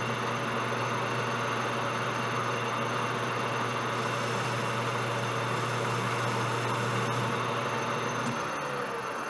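Large Jet metal lathe running steadily with its spindle turning, a low hum over an even hiss. Near the end the hum drops away and a tone falls in pitch as the machine is switched off and the chuck begins to coast down.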